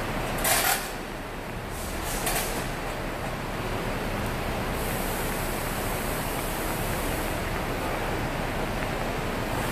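Compressed-air tool on a shop air hose being used to clean gasket surfaces on an engine's cylinder head. There are a couple of short sharp hisses, then a steady rushing hiss that grows brighter for a few seconds in the middle.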